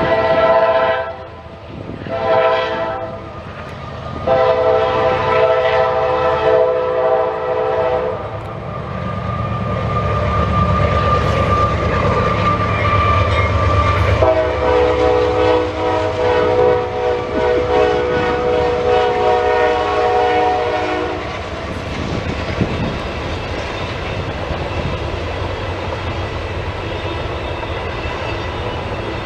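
Norfolk Southern freight train's diesel locomotive horn sounding a salute: two short blasts, then a longer one. The locomotives rumble past, a second long horn blast follows, and the freight cars roll by steadily with clickety-clack.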